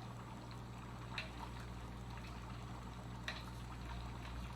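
Pots of water boiling on a stovetop, a steady bubbling over a low hum, with two light clicks, one about a second in and one a little after three seconds.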